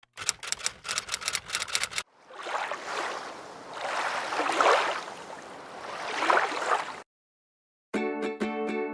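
A burst of rapid clicking for about two seconds, then ocean waves swelling and washing in twice before cutting off. Plucked-string music starts near the end.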